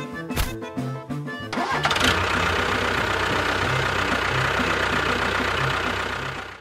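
Background music, then about a second and a half in a motor or engine starts and runs steadily with a fast low pulse. It cuts off abruptly near the end, with the music's beat still faintly under it.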